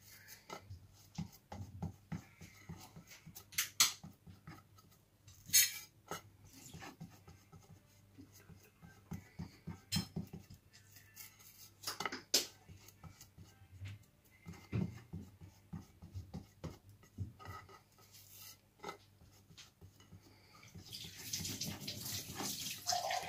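Fingers pressing and patting out a ball of rice-flour dough on an aluminium plate: faint, scattered taps and clicks of fingers and dough against the metal. A denser rustling starts about two seconds before the end.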